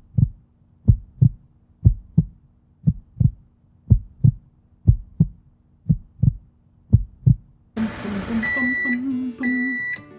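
A slow, steady double thump like a heartbeat, about one pair a second. Near the end a hiss comes in and a microwave oven beeps three times, signalling the end of its heating cycle.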